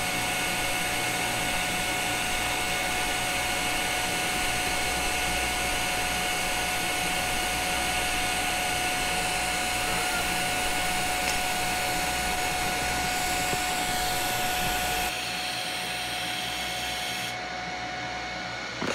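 TIG welding arc on stainless steel at about 73 amps, running steadily: an even hiss with a thin high whine. The arc cuts out about 15 seconds in, leaving a softer hiss that stops a couple of seconds later.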